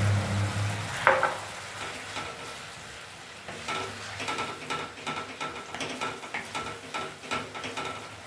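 A spatula stirring and scraping thick masala paste in a frying pan, with a light sizzle. There is a sharp knock about a second in, then a quick run of scraping strokes from about halfway through.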